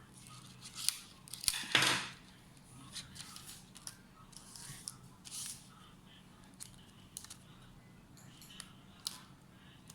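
Hands working on laptop hardware or its packaging: a run of sharp clicks and short scraping, rustling strokes, the loudest cluster about two seconds in, then scattered smaller clicks.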